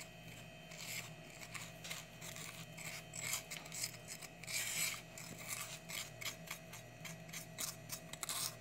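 Granulated sugar pouring into a plastic blender jar: a faint, uneven hiss and patter of grains with many small scratchy clicks.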